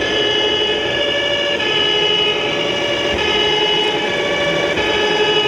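A scale RC fire truck's sound module playing a two-tone emergency siren, its two pitches alternating about every one and a half seconds.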